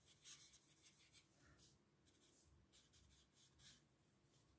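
Faint scratching of a felt-tip permanent marker on paper, a run of quick short strokes.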